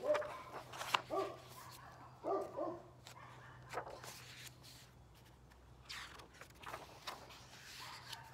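Pages of a large picture book being handled and turned, with soft paper rustles and a few sharp clicks. A few short pitched calls sound in the first three seconds.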